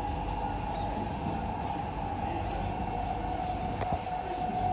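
Kawasaki-built Singapore MRT C151A train running, heard from inside the carriage: a steady low rumble from the wheels and track with a constant hum that sinks slightly in pitch, and a faint click near the end.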